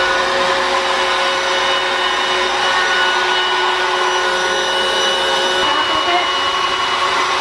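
Electric blower running steadily, pushing air through a hose into an inflatable bubble bumper ball as it fills, with a steady whine over the rush of air.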